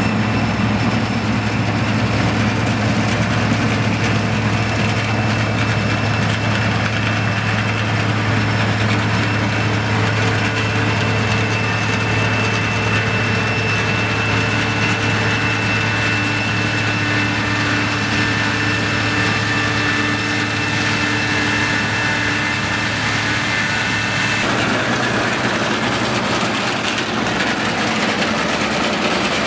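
Deutz-Fahr TopLiner 8 XL combine harvester running steadily at work in wheat: a deep, even engine drone with a thin high whine on top that stops about 24 seconds in.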